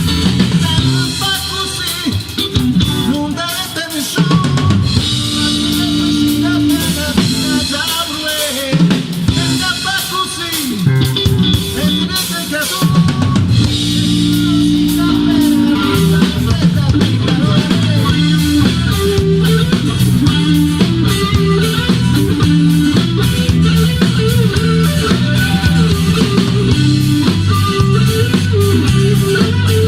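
Band music: a drum kit playing a steady beat with bass drum and snare, over bass and other pitched instruments.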